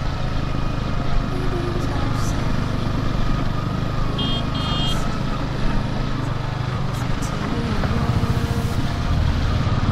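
Yamaha R15's single-cylinder engine running steadily while the motorcycle rides over a rough gravel track, its pitch shifting a little with the throttle. Two short high beeps sound about four seconds in.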